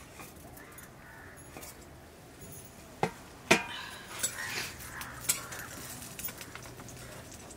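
A metal ladle knocks sharply twice against a metal pan on a wood fire, then stirs and scrapes pieces of buffalo intestine in the pan, with light clinks.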